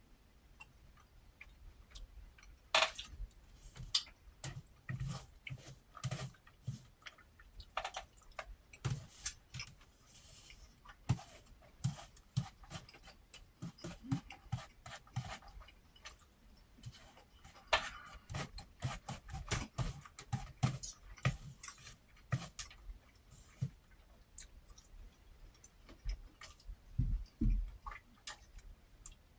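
Close-miked chewing and mouth smacking, with many soft irregular clicks from the mouth and utensils as fried fish, eggs and rice are eaten. A couple of low thuds come near the end.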